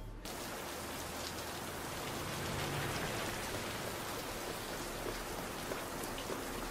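Steady rain pouring down, an even hiss.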